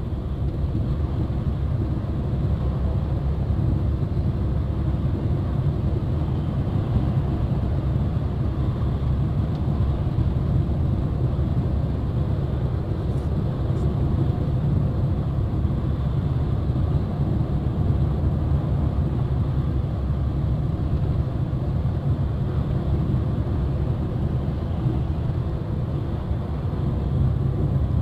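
Steady low rumble of a vehicle's engine and tyres heard from inside the cabin while cruising at highway speed.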